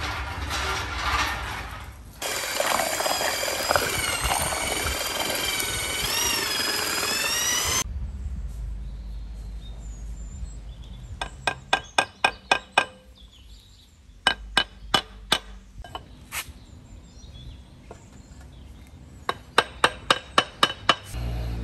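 Steel cart rolling over paving stones, then firebricks being set onto a steel frame: three quick runs of sharp clinks as brick knocks against brick and metal.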